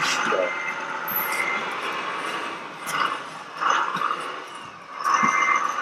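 Radio-controlled model trucks running, with a steady whine from their electric motors and gearboxes that swells louder three times.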